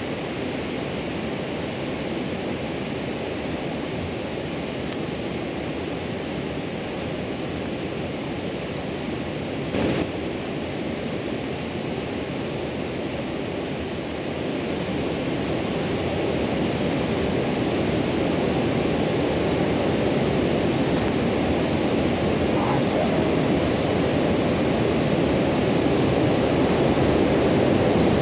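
Steady rush of fast-flowing river water and falls, growing louder from about halfway through.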